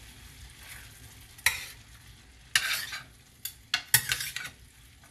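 Metal spoons scraping and clanking against a stainless steel sauté pan as pasta is tossed: about five short, sharp scrapes from about a second and a half in, over a faint sizzle.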